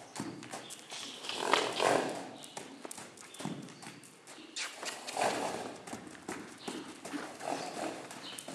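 A loose horse trotting around an indoor arena, its hooves beating on the soft dirt footing in a quick run of strikes. A couple of louder, longer noises sound over the hoofbeats, about a second and a half in and again about five seconds in.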